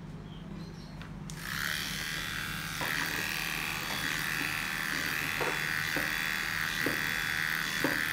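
Electric pet hair clipper running with a steady high buzz as it shaves through a cat's matted fur, starting about a second in.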